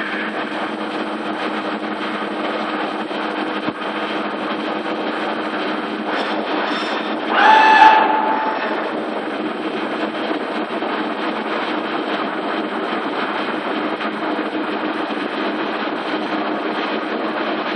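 DMU 65 five-axis CNC machining centre running a milling job under coolant: a steady mechanical running noise with a constant hum in it. About halfway through comes a loud whine lasting about a second, as the spindle head moves up away from the part.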